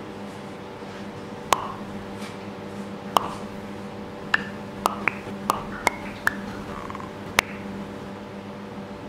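About nine sharp clicks at irregular intervals, each with a brief pitched ring, over a steady low hum of room or machine tone.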